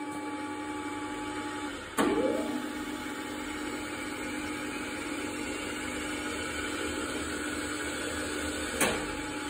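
Schaublin 102 lathe running, its spindle turning under the belt drive with a steady mechanical hum. A sharp click about two seconds in is followed by a brief rising whine before the run settles again. Another click comes near the end.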